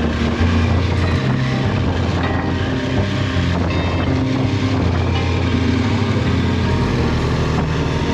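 BMW R1200GS boxer-twin engine running steadily while the motorcycle is ridden, with wind noise on the microphone.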